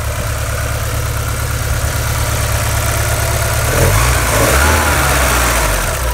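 Porsche 944's 2.5-litre four-cylinder engine idling steadily after a fresh restart. About four seconds in, the throttle linkage is opened by hand and the revs rise, then drop back toward idle.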